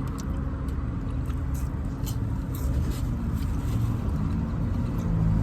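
Steady low rumble of a running vehicle engine or nearby road traffic, with faint scattered clicks over it.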